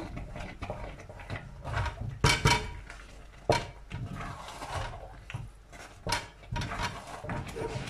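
A wooden spatula stirring and scraping cooked rice in a steel pot, with irregular knocks of the wood against the pot. The loudest knocks come a little over two seconds in, about three and a half seconds in, and about six seconds in.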